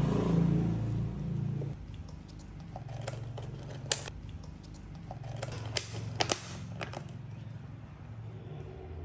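Sharp clicks and taps of thin plastic as a disposable cup is handled and its lid pressed on, the loudest about four seconds in and a cluster around six seconds. Under them runs a low steady hum that softens about two seconds in.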